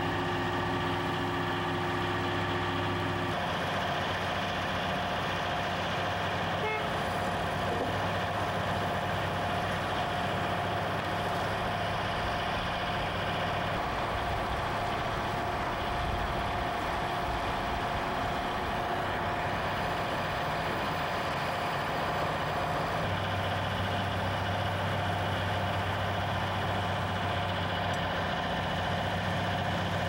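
Engines of heavy construction machinery running steadily in a continuous mechanical drone. The pitch changes about three seconds in and again near the end, and a held tone runs through the middle.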